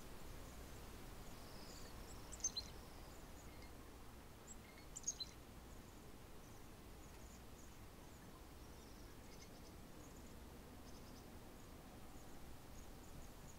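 A flock of waxwings giving faint, high, thin calls scattered throughout, with two louder bunches of calls about two and a half and five seconds in, over a steady low background noise.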